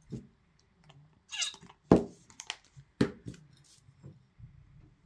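Small glass milk jar handled and knocked in the hands: a few sharp knocks, the loudest about two seconds in, with a short falling squeak just before it.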